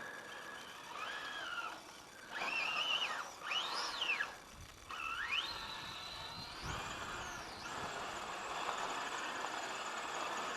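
Brushless electric motor of a 1/10-scale RC car whining as it is throttled up and down in several short pulls, its pitch rising and falling. A longer pull climbs to a high pitch about two-thirds of the way in, followed by a steady hiss.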